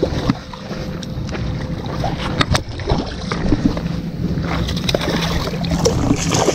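Lake water splashing and sloshing as a landing net is dipped in to scoop a hooked trout. Scattered knocks and a steady low rumble come from a body-worn camera being jostled over the rocks.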